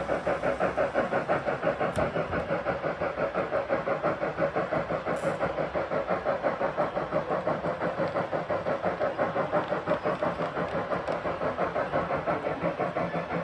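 Gauge 1 model of a DB class 50.40 Franco-Crosti steam locomotive, its onboard sound unit playing a steady steam exhaust chuff at about four to five beats a second as the engine runs slowly along the track.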